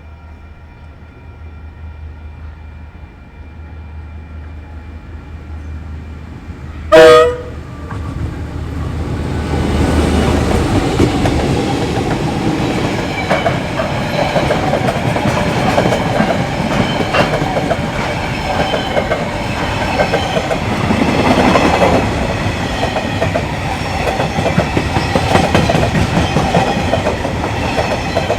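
Diesel freight train approaching with a faint steady drone, then one short, very loud horn blast about seven seconds in. The train then passes close by, its wagons running and clattering over the rail joints.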